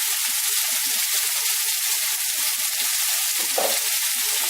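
Chicken pieces sizzling steadily in hot olive oil in a frying pan.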